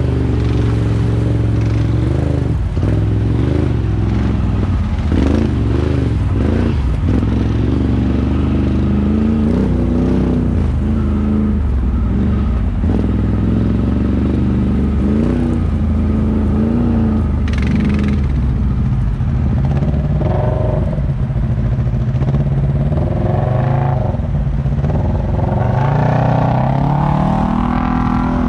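ATV engine running and revving up and down as the quad is ridden, its pitch climbing near the end.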